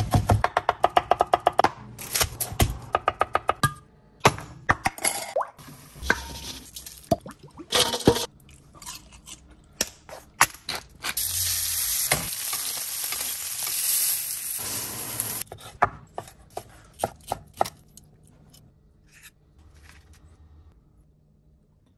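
A run of kitchen sounds: a knife chopping quickly on a wooden board at the start, then clinks and scrapes of fries being tossed in a stainless steel bowl, then about four seconds of steady sizzling from food frying. Near the end, fainter knife cuts on a cutting board.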